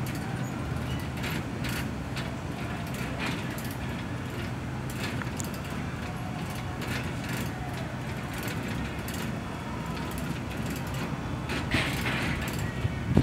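A steady low vehicle-like hum with scattered light clicks and rattles from the PCC streetcar's rollsign mechanism as the destination blind scrolls. The hum fades out about ten seconds in.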